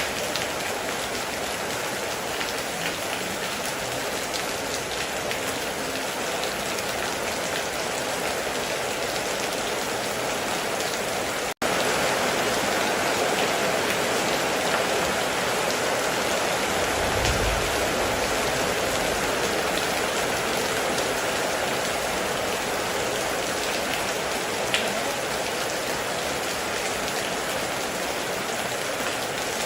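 Heavy rain falling steadily, a dense even hiss. About a third of the way in it drops out for an instant and comes back a little louder, and a short low rumble sounds just past the middle.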